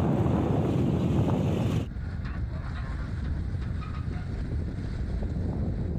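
Wind rushing over the microphone and road noise from a moving vehicle. About two seconds in, the sound cuts off abruptly to a quieter, duller low rumble of the vehicle driving on.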